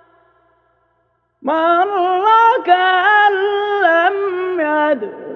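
A man chanting a verse of the Quran in the melodic Hijazi recitation style. After about a second and a half of silence he sings a phrase of long held notes that step up and down in pitch.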